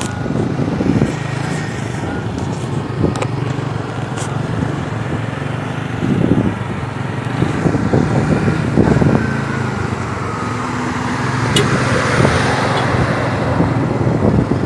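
Motorcycle engine running steadily at low revs, with a louder rush of noise about twelve seconds in.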